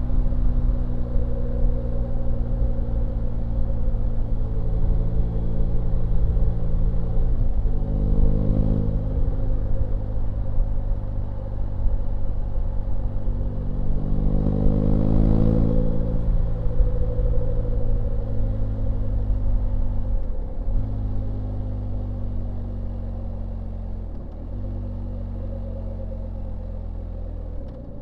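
BMW R1250GS Rallye's boxer-twin engine running on the move. Its note rises and falls around the middle and dips briefly a few times, then eases somewhat in the last few seconds.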